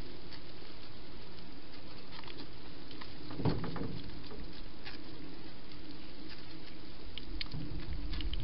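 Wild hedgehog foraging and eating: small scattered clicks and crunches of chewing over a steady hiss, with one louder soft knock about three and a half seconds in.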